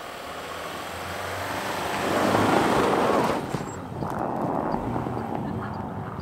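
Subaru Forester's 2.5-litre petrol flat-four engine running under load as the car pushes through deep snow, with the tyres churning snow. It grows louder for the first two and a half seconds, then drops suddenly a little after three seconds and carries on more quietly.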